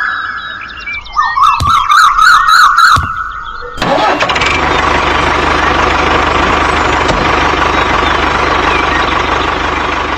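Warbling, whistle-like chirps with a couple of low thumps for the first few seconds. Then, about four seconds in, an engine starts and runs steadily with a low rumble.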